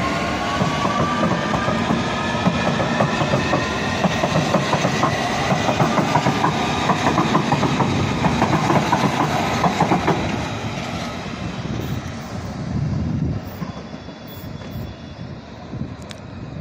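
London Underground S7 Stock District line train pulling out and accelerating. Its traction motors whine in rising tones, then its wheels clatter rapidly over the track, and the sound fades as it draws away.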